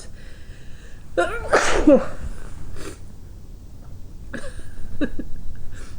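A person sneezing once, loudly, about a second and a half in: an induced sneeze that breaks through an attempt to hold it back. A shorter sound of breath and voice follows about three seconds later.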